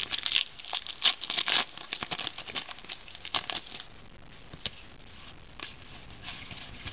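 Trading cards being handled and flipped through: a run of soft clicks and rustles of card stock, busy in the first few seconds, then only a few scattered clicks.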